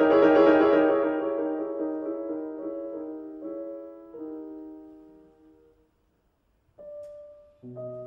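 Background piano music: held chords die away into a moment of silence about six seconds in, then a single note sounds and a new phrase of low chords begins near the end.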